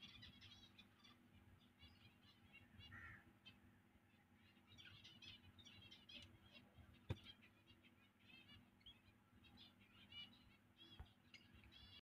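Faint high chirps from birds, many short calls in quick clusters throughout. There is one sharp click about seven seconds in.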